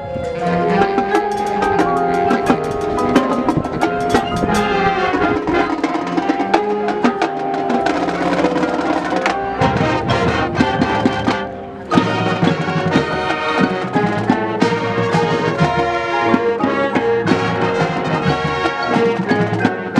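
A high school marching band playing, brass and drums together. The sound thins briefly just past halfway, then the full band comes back in with a sharp, loud hit.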